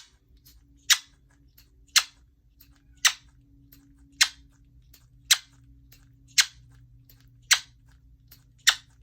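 Quaker parrot making repeated kiss sounds, sharp smacking clicks about once a second.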